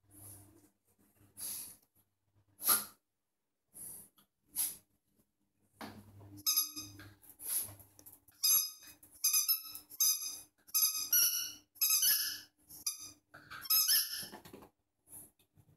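Squeaky rubber dog toy squeaking over and over as a French bulldog puppy chews and carries it: short squeaks of steady pitch in quick runs, starting about six seconds in. Before that, a few short noisy puffs from the puppy.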